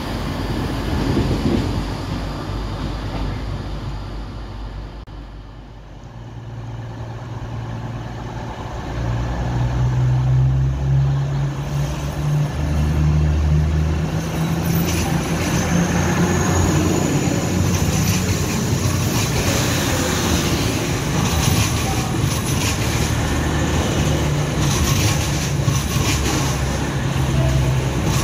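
A diesel multiple unit pulling away and fading. About nine seconds in, an EMR Class 180 Adelante diesel unit moves through the platform, with the steady drone of its underfloor engines and the rumble and clatter of its wheels.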